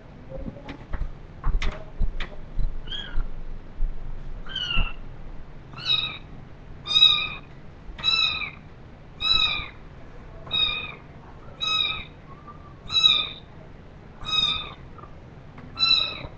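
Orphaned kitten meowing repeatedly in high-pitched cries, about eleven calls roughly a second apart, starting after a few light knocks.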